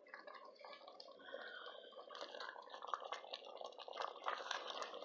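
A spoon stirring thick vegetable stew in a stainless steel pot: faint wet sloshing and dripping with small taps and scrapes.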